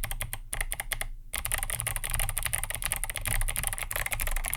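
Typing on an 8BitDo retro mechanical keyboard with Kailh Box White v2 clicky click-bar switches in a roomy plastic case: rapid crisp key clicks, with a brief pause about a second in before faster continuous typing.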